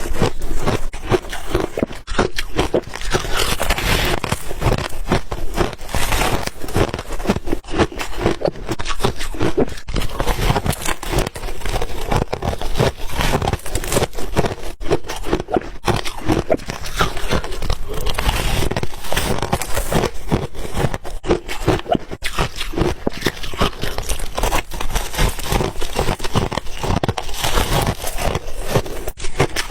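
Close-up chewing of white ice: a dense, unbroken run of crunches and crackles as it is bitten and ground between the teeth.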